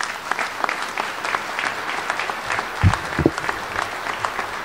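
Audience applauding, a dense patter of many people clapping, with two brief low thumps about three seconds in.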